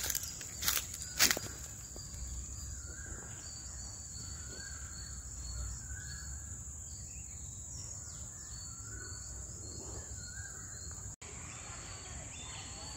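Garden ambience: a steady high-pitched insect drone with a small bird calling in short repeated notes, and a few sharp clicks or knocks in the first second or so.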